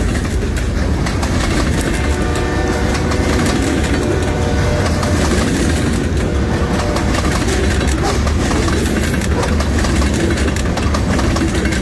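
Freight train of covered hopper cars rolling past close by: a steady rumble and rattle of steel wheels on the rails, with scattered clicks and clacks.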